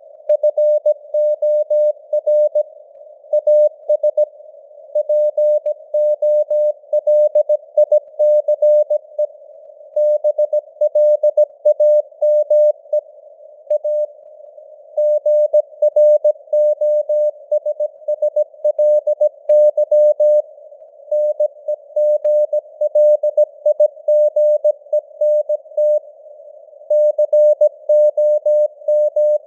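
Morse code (CW) at 17 words per minute: a single tone of about 600 Hz keyed on and off in dots and dashes. It sits in a narrow band of simulated radio hiss, and the signal strength varies as in radio fading (QSB).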